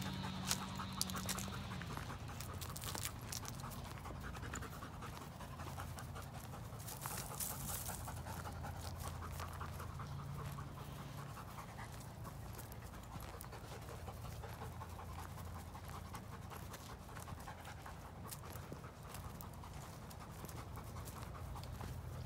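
Labrador retriever panting steadily.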